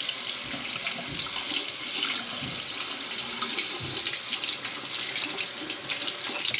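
Water running steadily from a tap into a sink, cutting off near the end.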